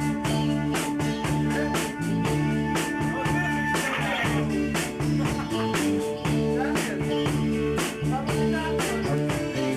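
Live rock band playing a song in rehearsal: guitar chords over a steady drum beat of about two hits a second, with a held guitar note that stops about four seconds in.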